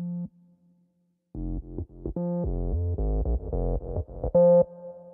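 Background electronic music with synthesizer notes. It drops out briefly near the start and comes back just over a second in with a quick run of notes.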